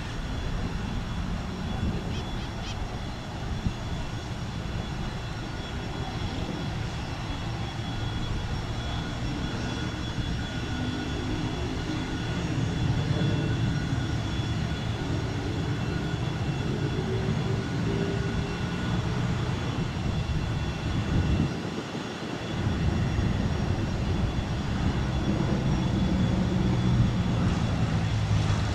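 Cessna 152's four-cylinder Lycoming piston engine and propeller droning steadily during a touch-and-go, with the engine note climbing slowly in pitch through the middle.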